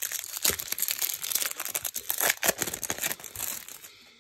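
A trading card pack's foil wrapper being torn open and crinkled by hand: a rapid run of crackles and rips that dies away near the end as the cards come out.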